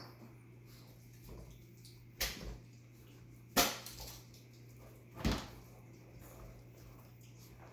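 Three short knocks about a second and a half apart, the middle one the loudest, over a steady low hum.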